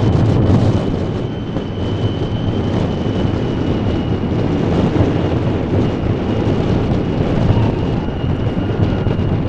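Steady low rumble of a harbor tugboat's diesel engines under heavy power, with a faint steady high whine over it.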